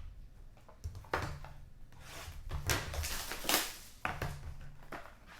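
Trading cards and their packaging being handled on a table: a series of irregular rustles, slides and light scrapes, the loudest a little past the middle.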